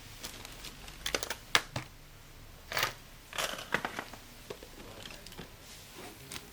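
Irregular sharp clicks in small clusters and a brief rustle over a steady background hiss.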